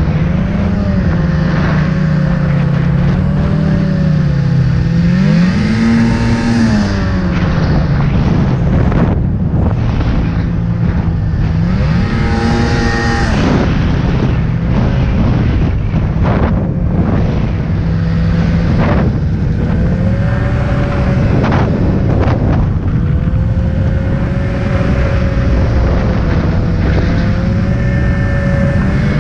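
Snowmobile engine running at speed, its pitch climbing briefly twice, about six seconds in and again about twelve seconds in, over a steady rushing noise of wind and track.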